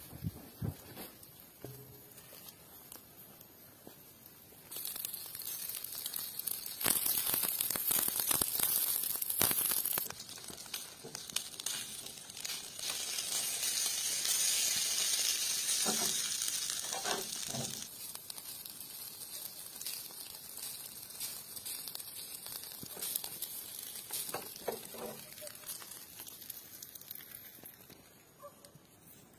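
Liquid poured over a skewered offal kebab runs down onto hot charcoal, sizzling and hissing. The hiss swells about five seconds in, is loudest through the middle, and dies down near the end.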